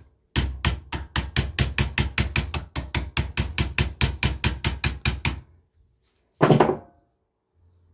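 Rapid, even metal tapping, about six strikes a second for some five seconds, then a single heavier clunk a second later. The tapping works the rusted blade of a WW2 German bayonet out of its scabbard.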